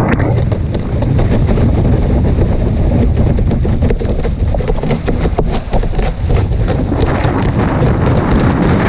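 Heavy wind buffeting on the microphone of a board-mounted action camera as a kiteboard rides fast over open water, with many quick clicks and slaps from spray and chop hitting the board and camera.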